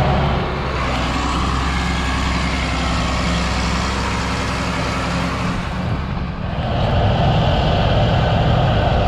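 Big Deutz diesel engine of a Gleaner R62 combine running steadily at working speed during harvest, with a deep low hum. About six seconds in the sound dips briefly, then comes back fuller and brighter.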